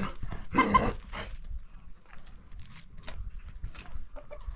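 A farm animal calls once, loudly, about half a second in, followed by scattered small clicks and knocks.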